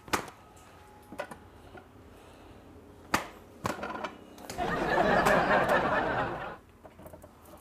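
A few sharp clicks, then a loud rushing whoosh of about two seconds past the middle.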